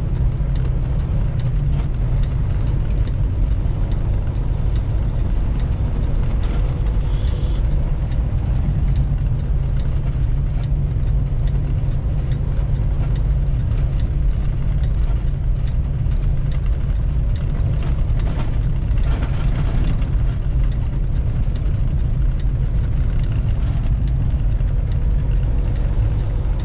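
Inside a semi truck's cab while driving: a steady low rumble of the diesel engine and road noise, with a couple of faint brief noises about 7 and 19 seconds in.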